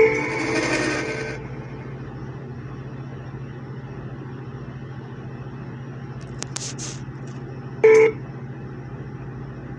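A steady low hum, with a single short electronic beep about eight seconds in. Music fades out at the start.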